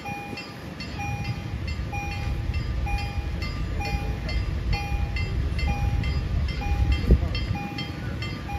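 Electronic level-crossing warning bell sounding a short beep about once a second, with fainter, quicker ticks above it. Under it runs the low rumble of a passing train, and there is one sharp knock near the end.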